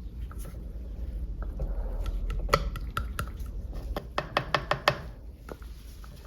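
Light clicks and taps of small hard objects over a low hum, with a quick run of about five sharp clicks near the end.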